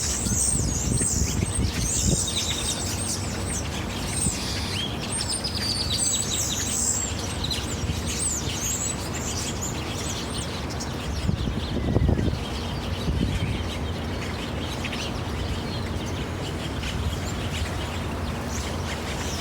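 Several small birds chirping and calling at once, a dense run of short high chirps that thins out after the first several seconds, over a steady low background rumble.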